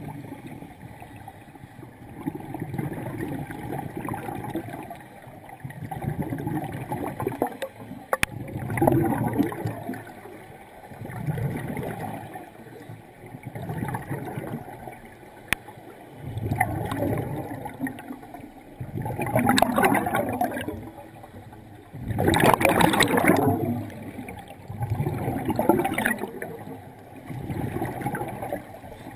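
Scuba regulator exhaust bubbles gurgling in bursts every few seconds, heard underwater. These are the exhalations of a breathing diver, and the loudest two come about two-thirds of the way through.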